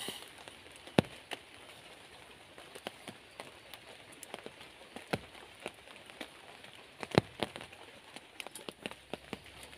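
Scattered drops tapping irregularly on a surface, with a couple of louder taps about a second in and near seven seconds, over a steady faint high hiss.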